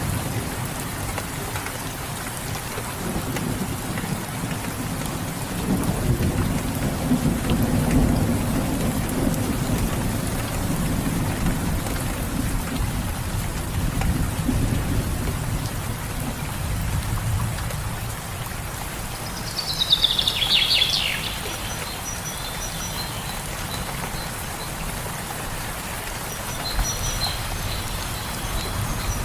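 Steady rain with low rolling thunder through the first half. About twenty seconds in, a bird gives one short falling call, and faint high-pitched chirping follows near the end.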